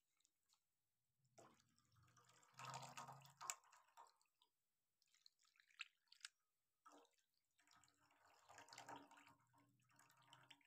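Near silence, with faint drips and trickles of water as a tilted metal pot of hot-water-washed meat is drained onto a plate, in two short spells, a few seconds in and near the end, plus a few single ticks.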